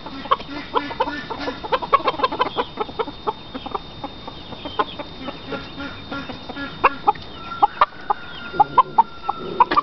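Chickens clucking: many short, irregular clucks and calls, with one longer, steadier high call from about seven and a half seconds in.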